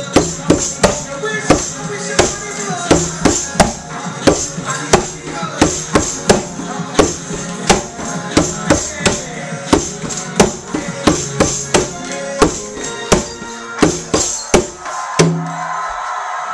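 Conga drums struck by hand in a quick, driving rhythm over music; the strikes stop near the end.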